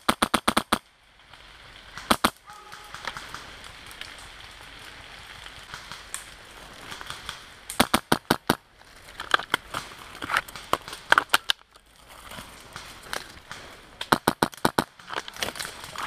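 Airsoft guns firing in rapid bursts of sharp, evenly spaced pops. One burst runs into the first second, short bursts follow around two seconds and near the middle, and more come near the end.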